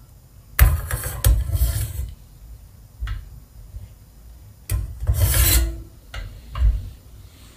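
Metal ladle scraping and rubbing against the inside of a stainless yukihira saucepan in several separate scrapes while skimming scum off a simmering broth.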